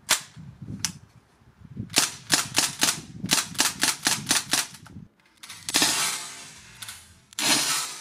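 DPMS SBR M4-style CO2 BB rifle firing with its blowback action: two single shots, then a fast string of about ten shots at roughly four a second, each a sharp crack with the bolt cycling. Two longer rushing sounds follow near the end.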